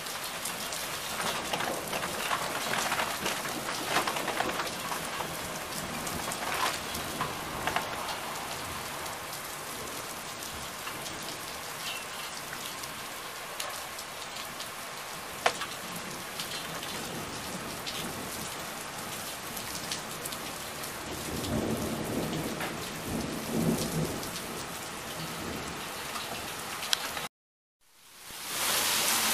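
Heavy rain falling steadily on paving and rooftops during a thunderstorm, with a low rumble of thunder about 21 to 25 seconds in. Near the end the sound drops out for a moment and comes back as a louder, heavier downpour.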